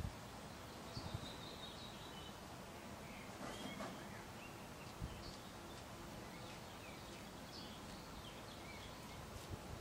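Faint outdoor ambience with scattered short, high chirps of small birds calling in the background.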